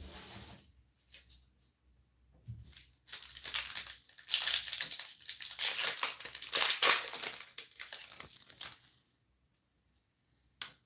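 A baseball card pack's foil wrapper being torn open and crinkled, several seconds of dense crackling, with a sharp click near the end.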